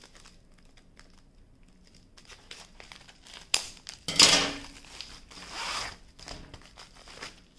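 Scissors snipping through the end of a plastic mailer bag with small faint clicks, then the plastic crinkling and rustling as the bag is pulled open and the package slid out, loudest about four seconds in and again near six seconds.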